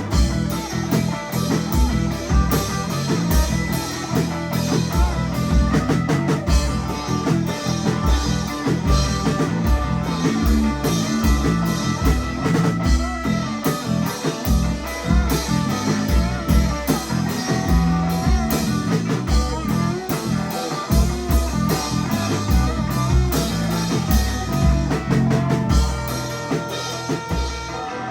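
Live rock band playing loud and dense: distorted electric guitar over a drum kit with a steady, repeated kick drum. Instrumental, no vocals.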